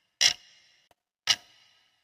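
Clock ticking, one sharp tick a second with a short ringing tail after each; two ticks fall here.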